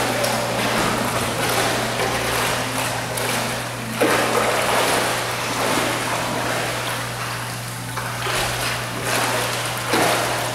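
Pool water splashing and sloshing as a Borzoi paddles, with sharper splashes about four seconds in and again near the end, over a steady low hum.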